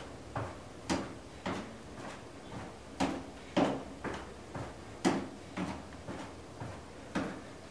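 Footfalls of a three-minute step test: feet stepping up onto and down off a low aerobic step in a steady rhythm, about two knocks a second, some louder than others.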